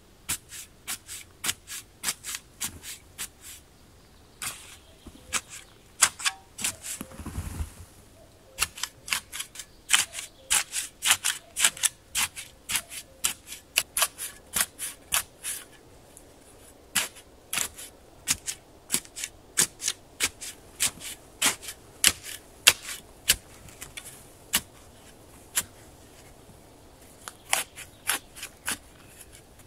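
Steel shovel blade jabbing and cutting into sandy soil while digging a pit: an irregular series of sharp, crunchy strikes, about two a second at the busiest. A duller, longer thud about seven seconds in.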